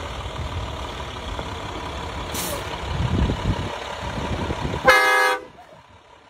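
Engine of a huge six-door pickup truck rumbling as it drives up, swelling louder, with a brief hiss about two seconds in. Just before the five-second mark comes one short, loud blast of the truck's train horn, which cuts off sharply.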